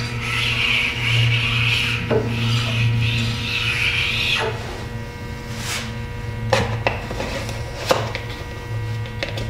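Round hone stone rubbed across the top of a surface grinder's magnetic chuck: two long scraping strokes in the first half, then a few sharp knocks as tools are handled, over a steady low hum.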